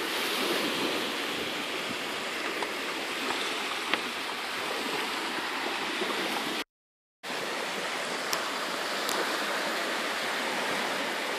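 Gentle sea surf washing on the shore, a steady even hiss. About seven seconds in, the sound cuts out completely for about half a second.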